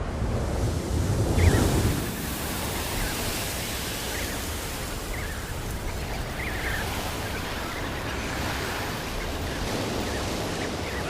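Wind blowing across open ice, a steady rushing noise with a low rumble on the microphone and a stronger gust about a second and a half in. Faint short high peeps from penguin chicks come now and then.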